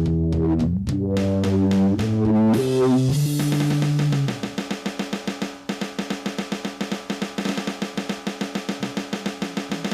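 Band music: held chords for the first few seconds, then a fast, even drum beat takes over about four seconds in.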